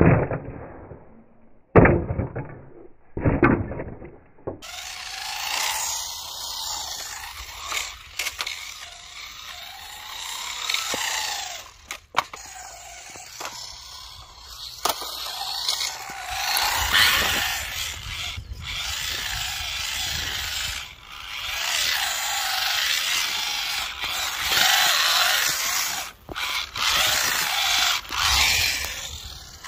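Motor and gears of a radio-controlled 1/8 three-wheeled trike, whining and rising and falling as it drives over concrete. In the first few seconds there are a few hard knocks as it lands and bounces.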